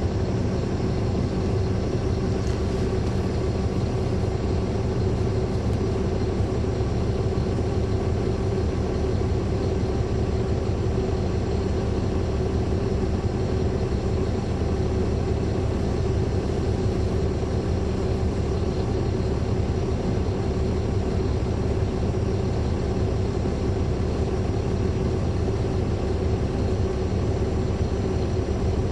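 A Caterpillar C13 ACERT inline-six diesel engine running steadily with its engine cooling fans on, heard from the rear seats inside the bus as a dense, even drone.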